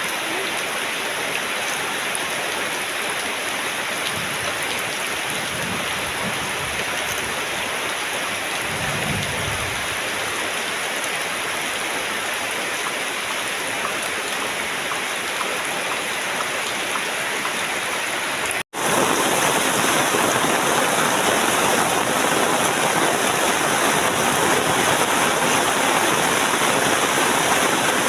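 Steady heavy rain falling, an even hiss, with a low rumble about four to ten seconds in. About two-thirds of the way through the sound cuts out for an instant, and the rain comes back louder.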